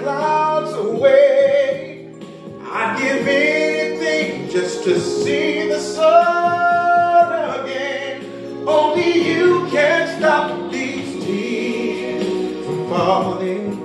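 A man singing an R&B ballad over steady sustained backing chords, with runs that bend in pitch and one long held note about six seconds in.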